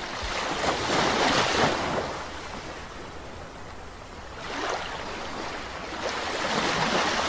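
A rushing noise, surf-like, that swells about a second in, eases off, and swells again from about four and a half seconds.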